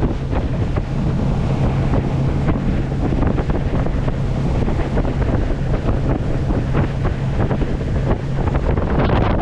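Heavy wind buffeting the microphone over the steady low drone of a pontoon boat's motor running across open water; the motor hum drops away near the end.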